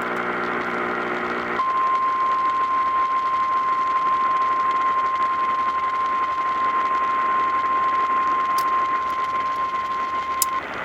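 Emergency alert broadcast over radio, with a hiss of static throughout. It opens with a low buzz for about a second and a half, then a single steady high alert tone (the weather-radio attention signal) holds for about nine seconds before cutting off. The tone heralds a severe thunderstorm warning.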